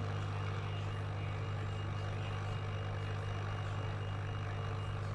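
Hot air rework station blowing steadily, an even air hiss over a low hum, as it heats newly placed capacitors to reflow their solder.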